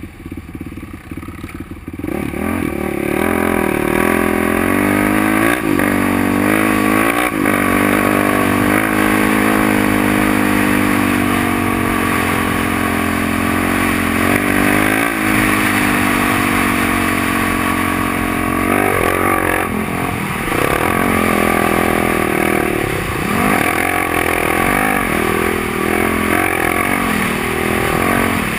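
Off-road vehicle engine under throttle, opening up about two seconds in and then running hard with repeated rises and dips in revs, over a steady rush of wind noise.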